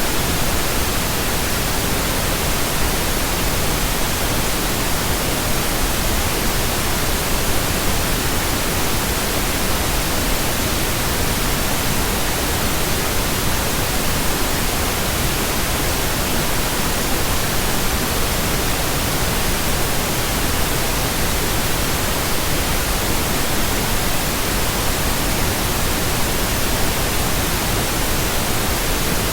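Steady, even pink noise: a continuous synthetic hiss spread across all pitches, with no change throughout.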